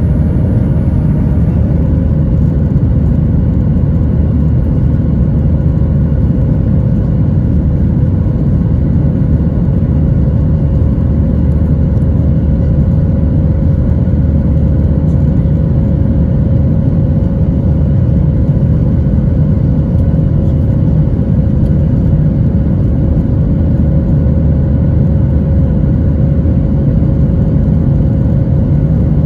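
Boeing 737 jet engines and rushing air heard inside the passenger cabin: a loud, steady low rumble with a steady hum, running at high power as the airliner takes off and climbs.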